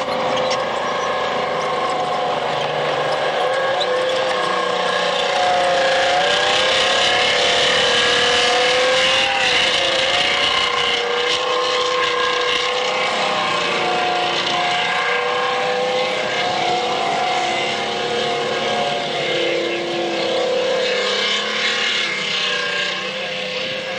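Tanks driving fast over rough ground: heavy engines running, their pitch rising and falling as they accelerate and ease off, over a clattering of tracks.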